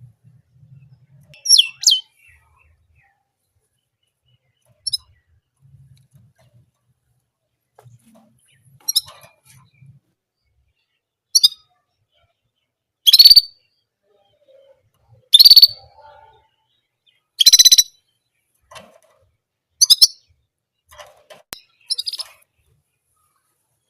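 Orange German canary giving short, high chirps, one every second or two, about ten in all, with quiet gaps between them; the loudest calls come in the second half.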